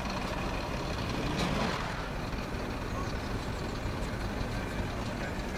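A vehicle engine idling steadily, a low even hum with no revving.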